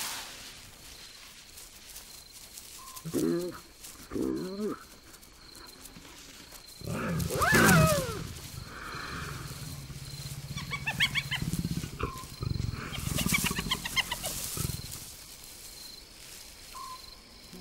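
Spotted hyenas calling. There are two short calls, then a louder call that sweeps up in pitch and back down about seven seconds in. A low drawn-out growl follows, with bursts of high, rapid cackling over it.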